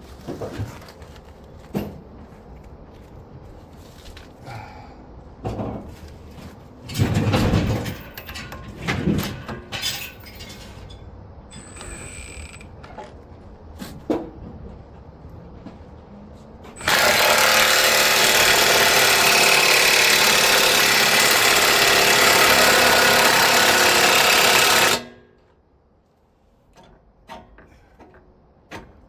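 Scattered metal clanks and knocks, then a power impact wrench runs loudly and steadily for about eight seconds on the front hub assembly's bolts before stopping suddenly, driving them to full torque.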